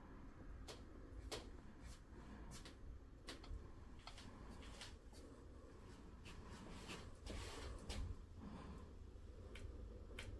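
Quiet room with a low rumble and a scattering of faint, irregular clicks, plus a brief rustle about two-thirds of the way through.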